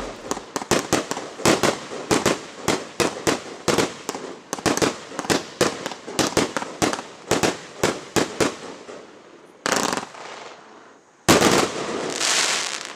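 Aerial fireworks cakes of a 60-shot consumer finale set firing in a quick rhythm, about three sharp reports a second. A louder, denser crackling volley follows near the end.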